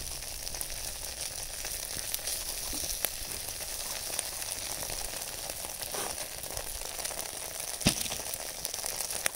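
Vegetable stir-fry sizzling steadily in an aluminium tray over a charcoal shichirin grill, hot enough to be scorching. There are a few light clicks, and one sharp tap near the end.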